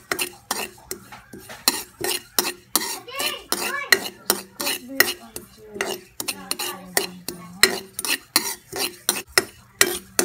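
A spatula stirring and scraping sesame seeds around a dry metal pan, toasting them over medium heat. It gives quick, sharp scrapes and knocks against the pan, about two to three a second.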